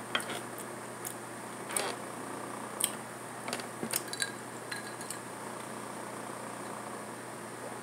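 Steady whir of an electric fan, with a scattering of small clicks and rustles from handling food and a napkin over the first five seconds or so.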